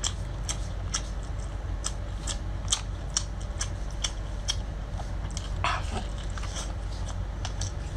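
Close-miked eating: biting into and chewing lobster claw meat, a steady run of sharp, wet mouth clicks and smacks a few times a second.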